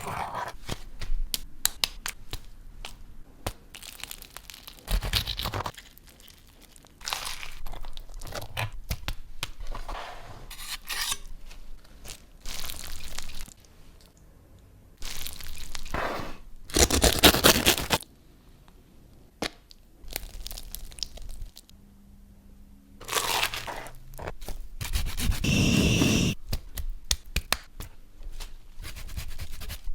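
Close-miked sandwich-making sounds: a run of crisp cracks, crunches, tearing and crinkling, each lasting up to about a second, with short quieter gaps between them.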